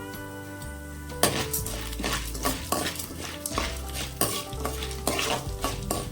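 A ladle stirring and scraping food in a frying pan, with a sizzle of frying in oil; the strokes start about a second in and come about twice a second. Background music plays throughout.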